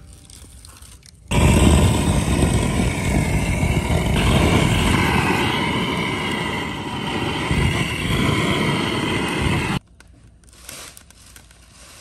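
Handheld butane gas torch firing a jet of flame into firewood to light it: a loud, steady rush that starts suddenly about a second in and cuts off suddenly about eight seconds later.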